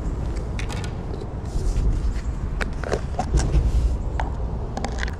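A low, uneven rumble that swells twice, with scattered sharp clicks and taps over it.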